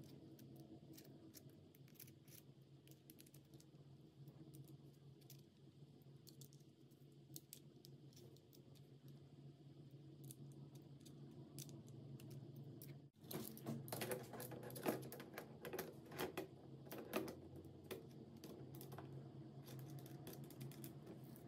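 Faint small metallic clicks and taps of a scope and its mount being handled and fitted onto a rifle rail, over a low steady hum. After an abrupt break about two-thirds of the way through, the clicking and rattling comes thicker and louder for a few seconds.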